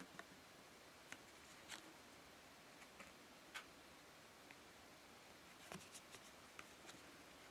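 Faint, irregular light clicks and taps of Pokémon trading card packs and cards being handled, over a quiet room.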